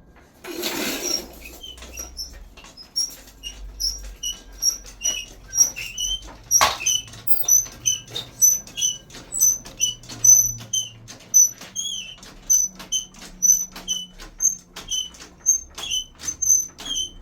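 Short, high-pitched squeaks repeating about twice a second in a steady rhythm. A brief rush of noise comes near the start and a single sharp knock about halfway through.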